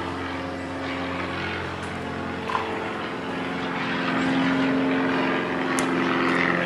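Steady droning hum of a running motor, getting a little louder about four seconds in, with a light click about two and a half seconds in and a sharp tick near the end.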